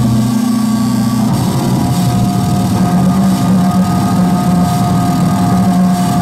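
Live noise music from electronics and effects pedals: a loud, dense, steady drone of low buzzing tones, with a thin high tone that comes in and holds from about two seconds in.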